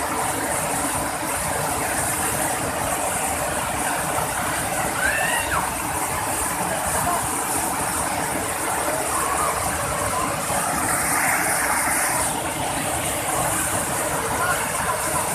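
Waterfall with water rushing and splashing in a steady, loud, even rush.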